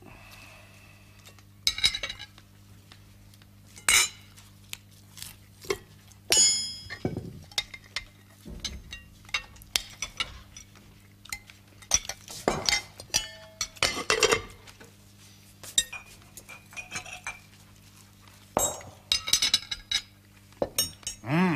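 Cutlery and china dishes clinking and knocking as food is served and eaten at a table, in scattered short clicks, some ringing briefly.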